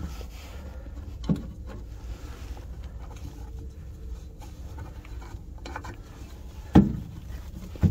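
Two knocks from a boat's storage locker lid being handled, one about a second in and a louder one near the end, over a steady low rumble.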